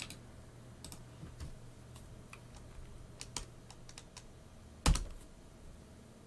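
Scattered single clicks of a computer keyboard and mouse, with one louder key press about five seconds in, over a faint steady low hum.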